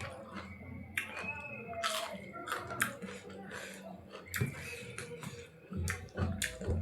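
Close-up eating sounds: irregular wet clicks and smacks of someone chewing, with a faint voice or music behind.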